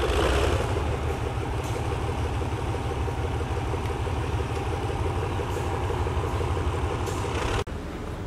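Diesel railway engine running with a steady low rumble, which cuts off suddenly near the end.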